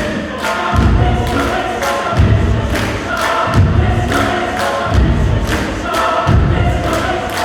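Mixed choir singing held, chant-like chords over a piano striking heavy low-register notes that come back about every one and a half seconds.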